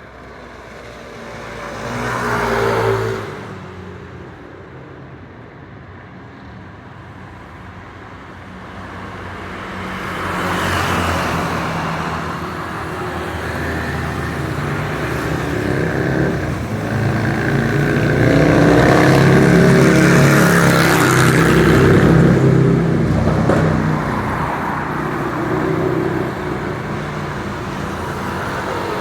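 Road traffic on a main road: a vehicle passes close about three seconds in, then the traffic builds, with loud engines passing and their pitch wavering around twenty seconds in, before settling back to a steady traffic rumble.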